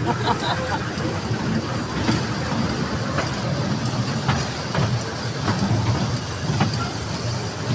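Small amusement-ride train rolling along its track: a steady low rumble with a faint click about once a second.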